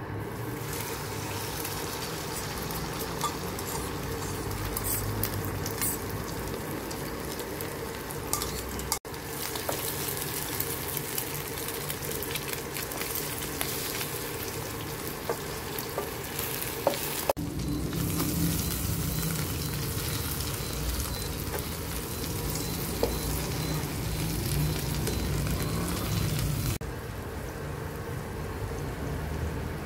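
Thai basil omelette with minced pork frying in hot oil in a nonstick pan: a steady sizzle with scattered small pops. There are occasional light taps and scrapes of a spatula and fork against the pan.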